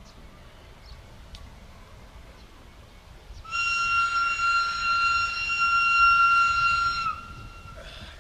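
Whistle of a 060-DA (LDE2100) diesel locomotive sounding one long, steady blast of about three and a half seconds as the freight train approaches. The pitch sags slightly as it cuts off.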